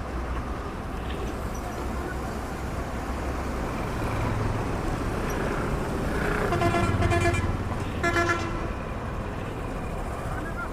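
Road traffic running steadily, with a vehicle horn honking twice: a longer blast about six and a half seconds in, and a short one about a second later.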